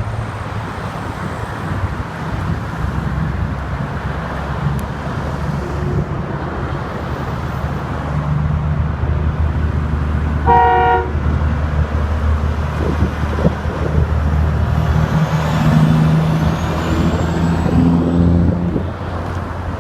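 Highway traffic with heavy diesel trucks passing, their engines droning and growing louder from about the middle to near the end. About halfway through, a single short horn toot lasting about half a second.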